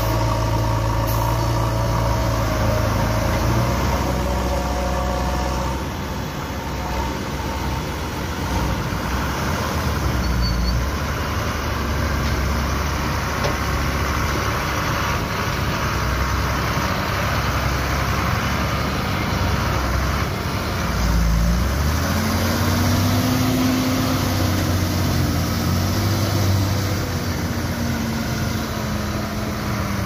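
Ashok Leyland tipper truck's diesel engine running as the mud-laden truck drives off, with the engine note rising and then easing off about two-thirds of the way through.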